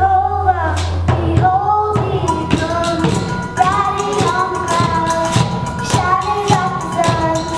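A young girl sings a melody into a microphone. Children keep a steady beat of about two strikes a second on steel kitchen pots, pans and vessels played as percussion.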